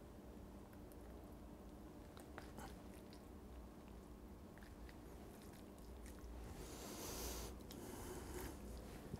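Faint wet squishing and small clicks of raw chicken skin and bread stuffing being handled as a skewer is threaded through the skin to stitch it closed, with a brief louder rustle about seven seconds in.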